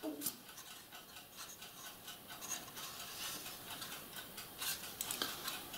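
Faint rubbing and small clicks of plastic model-kit parts being handled and turned over in the hands, with a few light taps.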